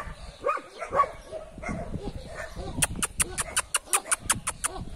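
Dogs barking and yipping in play, with a quick, even run of about ten sharp clicks, roughly five a second, about three seconds in.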